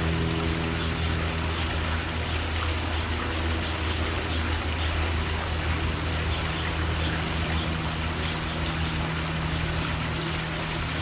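Steady outdoor background hiss like running water, under a low mechanical hum that drops out for several seconds and comes back near the end.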